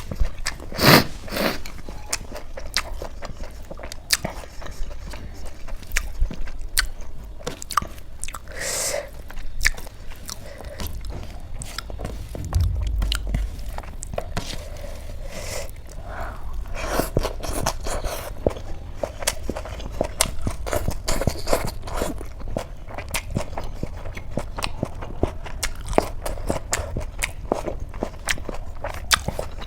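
A person eating a meal of chickpea curry and rice: chewing and biting, with crunchy bites and many irregular small clicks throughout.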